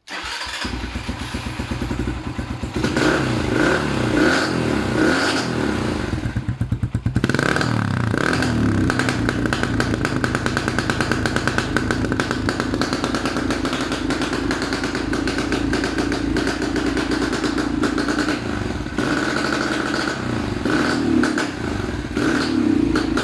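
Racer motorcycle engine running, its note dropping briefly about six or seven seconds in and then picking up again. The bike came in with hesitation and black smoke, faults later traced to a spark plug with its centre electrode worn away, a rusted pickup-wire contact and a main jet that had unscrewed.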